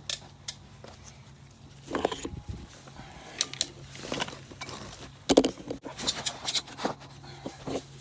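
Hands fitting a serpentine belt onto the engine's pulleys: scattered clicks, light knocks and rubbing of rubber and metal parts being handled, over a faint steady low hum.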